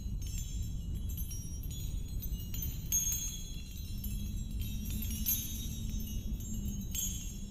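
High tinkling chime-like tones, many overlapping and starting and stopping throughout, over a steady low rumble.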